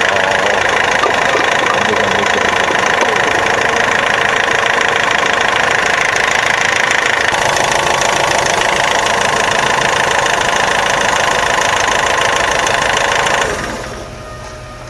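Isuzu diesel engine of a Clark S30D forklift running, heard close up over the open engine bay. About 13.5 seconds in the sound drops off sharply and leaves a much quieter low hum.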